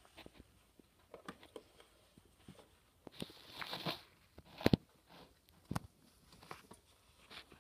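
A cat biting, rubbing and rolling on a catnip pouch on a stone countertop: scattered small crunches and rustles, a longer scraping rustle about three seconds in, and a sharp knock just before five seconds, with a softer one about a second later.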